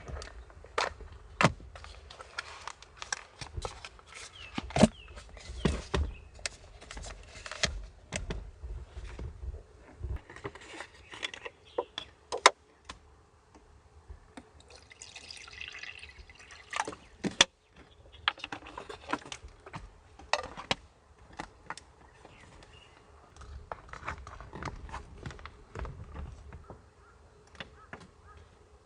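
Irregular light taps and clicks, one to three a second, among faint dripping and trickling water.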